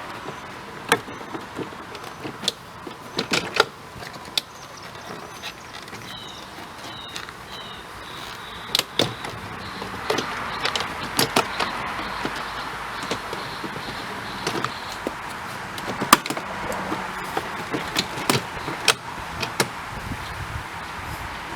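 Plastic push-pin clips on a 2003 BMW 530i door trim panel being pried loose with a tool: a string of sharp clicks and snaps at irregular intervals over plastic rubbing and scraping.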